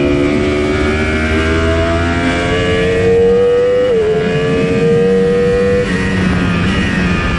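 2015 Yamaha YZF-R1's crossplane inline-four accelerating hard, its note rising steadily in second gear. It drops sharply with an upshift to third about four seconds in, then climbs again.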